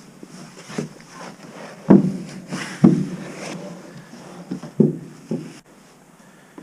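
Footsteps of a hunter walking: a handful of heavy, uneven thuds with rustling between them, the loudest about two and three seconds in.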